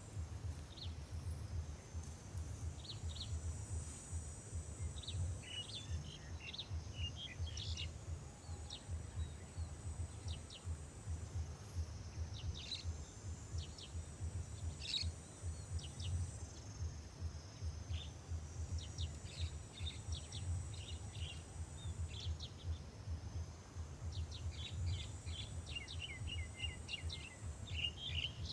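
Birds chirping in short, scattered calls, with a clustered run of chirps near the end. Underneath is a high buzzing that comes and goes in stretches of a few seconds, over a steady low rumble.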